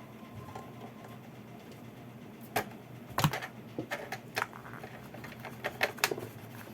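Irregular sharp clicks and light knocks, about half a dozen spread over a few seconds, from hand work with small parts and tools at a workbench.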